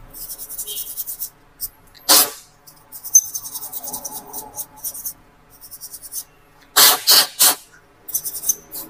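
Quick brushing and scratching strokes over the dust-caked insides of an opened laptop, in runs of fast scratches. Four short, loud puffs of air are heard, one about two seconds in and three close together near the end.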